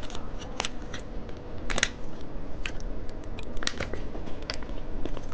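Plastic candy packaging being handled and opened: irregular sharp clicks and crinkles, a few every second.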